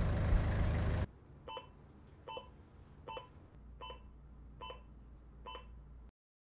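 A vehicle engine runs for about a second and cuts off abruptly. Then a hospital bedside patient monitor beeps six times, evenly about 0.8 s apart, over a faint low hum.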